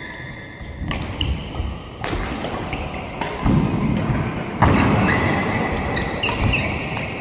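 Badminton doubles rally: rackets strike the shuttlecock several times, sharp cracks about a second apart. Shoes squeak briefly and feet thud on the court floor between the shots.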